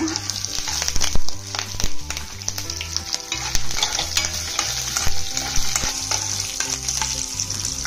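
Peanuts, chana dal and green chillies sizzling in hot oil in a kadai while a spatula stirs them, scraping and clicking against the pan throughout.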